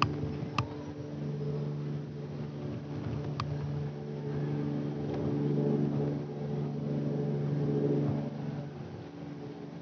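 Van's RV-10 single-engine light aircraft flying overhead: a steady propeller-and-engine drone with a low hum, swelling louder through the middle and fading near the end.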